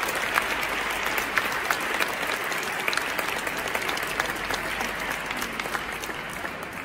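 Audience applauding in a church, a dense patter of many hands clapping that slowly fades near the end.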